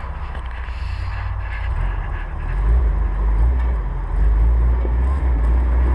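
Toyota off-road truck's engine rumbling under load as it crawls over rocks, revving up about halfway through and again a little later.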